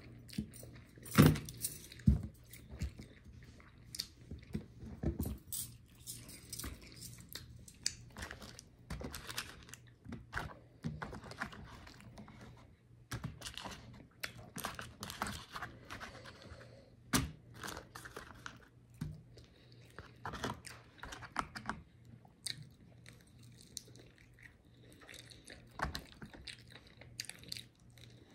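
Eating fried chicken wings: irregular bites, crunches and chewing, with sharp clicks scattered throughout.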